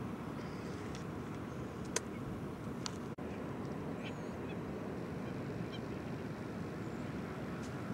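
Steady wind noise on the microphone, with two sharp clicks about two and three seconds in and a few faint high chirps a little later.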